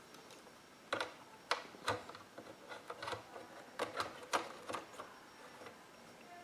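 CD/DVD drive being fitted back into a desktop computer's drive bay: a run of about a dozen irregular sharp clicks and knocks as it is handled and seated.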